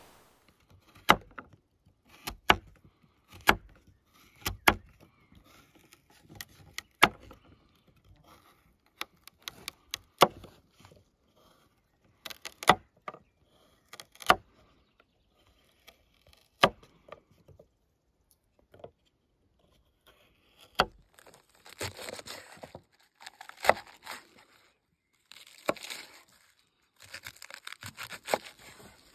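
Small knife chopping carrot slices on a wooden cutting board, single sharp knocks about once a second. In the last third it changes to crisp, crunchy cuts through cabbage leaves, with the knife knocking on the board.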